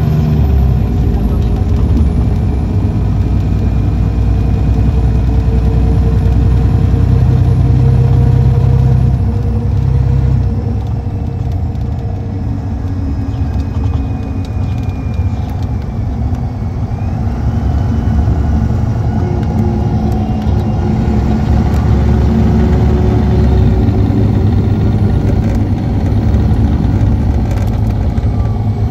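Cummins ISX 11.9-litre six-cylinder diesel of a 2014 MCI D4500CT coach running with a steady low drone. It eases off about ten seconds in and builds again after about twenty seconds.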